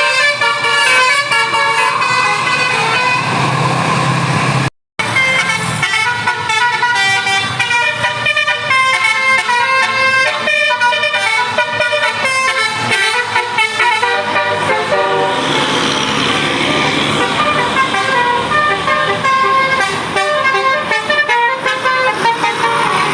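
Bus Basuri 'telolet' musical air horns playing melodic multi-note tunes, the notes changing in quick steps. The sound cuts out for a moment about five seconds in, and a noisier rushing sound runs under the horns from about fifteen seconds on.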